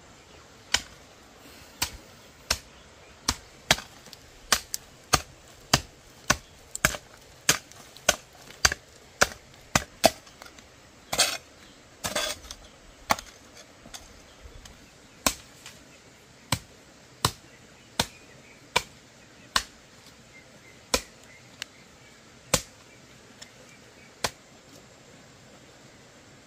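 Hand hoe chopping into dry garden soil, a sharp strike somewhat more than once a second, with two longer scraping strokes midway; the strikes stop shortly before the end.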